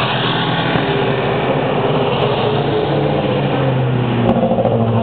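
Formula Student race car engines running at low speed as the cars roll slowly in, the note shifting a little, with a car drawing close near the end.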